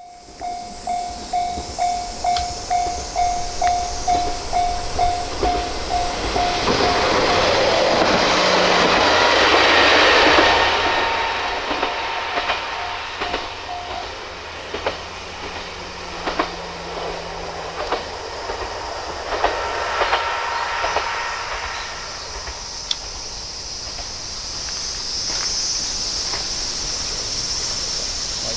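Level-crossing bell ringing about twice a second as a single-car diesel railcar approaches. The railcar passes, loudest about ten seconds in, and its wheels click over the rail joints as it runs away. Insects shrill steadily near the end.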